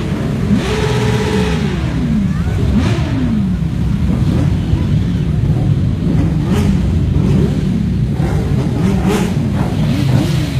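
Many motorcycle engines running together as a convoy rides past, with engines revving and their pitch rising and falling.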